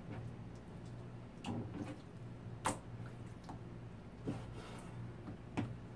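Chinese cleaver chopping raw boneless chicken breast into chunks on a plastic cutting board: four sharp knocks of the blade on the board, a second or so apart, the second the loudest, over a low steady hum.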